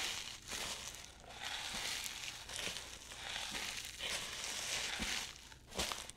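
Boots walking on sand: a steady run of crunching footsteps, about two a second.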